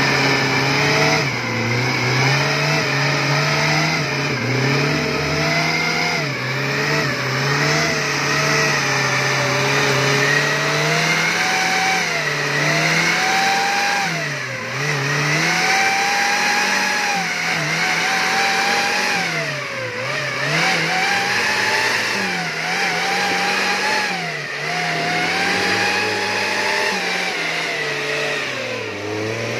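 Suzuki 4x4's engine revving under load, its pitch rising and dipping again and again as the stuck vehicle is winched and driven up out of a muddy rut.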